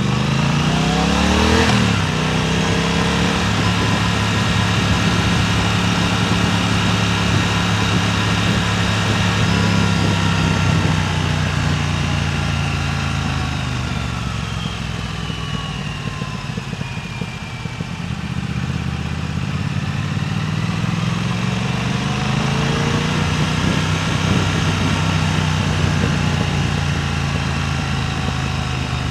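Motorcycle engine running while riding, with wind rushing over the microphone. It revs up and shifts in the first couple of seconds, holds a steady pitch, eases off a little past the middle, then pulls up again.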